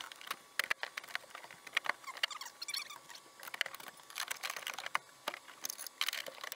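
Irregular light clicks, taps and rattles of hand tools and metal hardware being worked while refitting a pop-up camper's lift crank mechanism.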